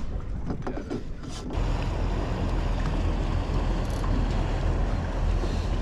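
Wind blowing across the microphone over water moving against the side of a drifting boat, a steady rushing noise that jumps louder and heavier about a second and a half in.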